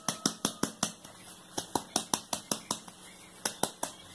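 Sharp plastic clicks from a clear tube chick feeder full of quail feed as it is handled, coming in three quick runs of about five or six a second, the last run short.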